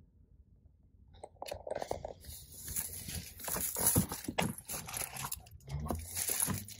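Rubber floor liner being lifted and handled, with crackling, crinkling rustles and small clicks that start about a second in and grow busier.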